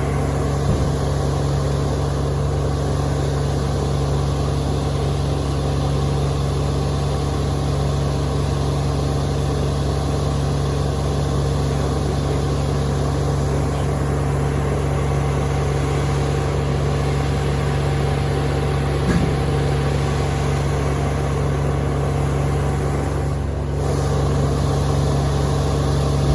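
Large engine idling steadily, with a constant low hum and no change in speed.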